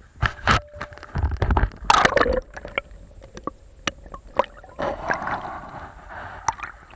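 Shallow shore-break water splashing and sloshing right at the microphone, heard through a waterproof camera housing that dips under the surface and back out. Several loud splashes come in the first two and a half seconds, then gentler sloshing with small clicks.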